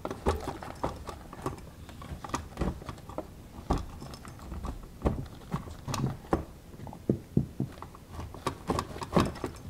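Irregular light clicks, taps and rubbing as a borescope camera lead is pushed by hand through an electrical box opening and up into a wall cavity.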